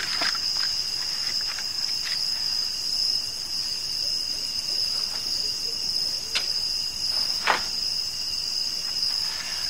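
Crickets chirring in a steady, continuous high-pitched chorus, with a few brief knocks or rustles over it, the sharpest about seven and a half seconds in.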